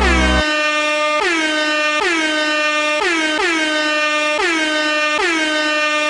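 DJ-style air horn blasting over and over on one pitch, a little under a second apart, each blast opening with a short downward swoop in pitch. The backing beat cuts out about half a second in, leaving the horn alone.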